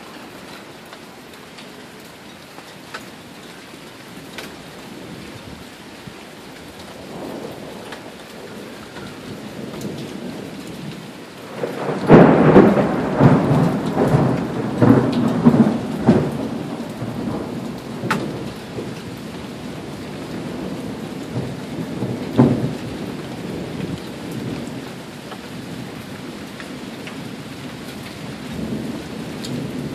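Steady rain falling during a thunderstorm, with a loud peal of thunder breaking about twelve seconds in and rumbling and crackling on for several seconds. A smaller thunder rumble comes later.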